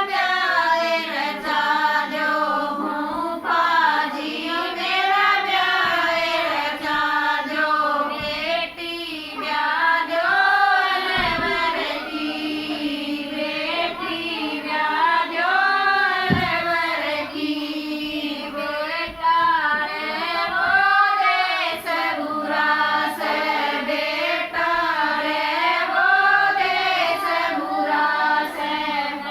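Women's voices singing a Haryanvi banna, a folk wedding song for the groom, one continuous wavering melody.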